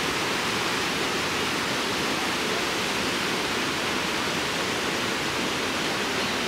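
Fast-flowing river water rushing steadily, the whitewater of the Merced River along the Mist Trail.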